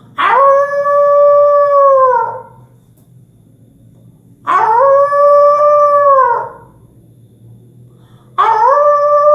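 A man imitating a wolf's howl with his voice: three long howls, each swooping up, holding a high steady note, then sliding down, the third cut off at the end.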